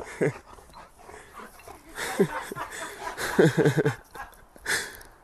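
A dog making short vocal calls that slide in pitch, with a quick run of four of them about three and a half seconds in.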